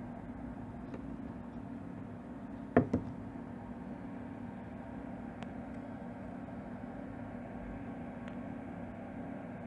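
LM386 audio amplifier idling with no input signal, its speaker giving a steady low hum with a hiss on top. Two sharp clicks come close together about three seconds in, with a few faint ticks elsewhere.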